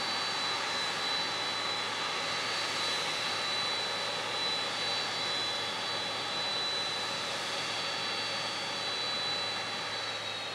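Auxiliary power unit of a parked Boeing 767-300 freighter running: a steady jet hiss with a high, thin whine over it.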